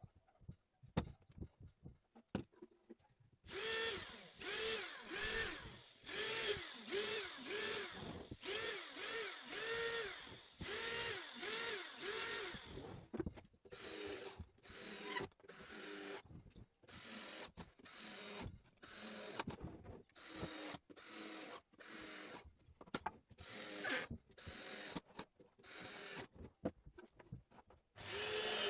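Cordless drill run in short trigger pulses on the corner of a pine hive box: a quick run of brief whirs, each spinning up and down in pitch, then shorter, more spaced bursts. A few light knocks and clicks of handling come before the drill starts.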